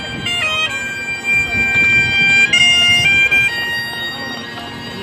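Great Highland bagpipe playing: a chanter melody of quick stepped notes over the steady drone. About three and a half seconds in the melody drops back and the drone carries on more quietly.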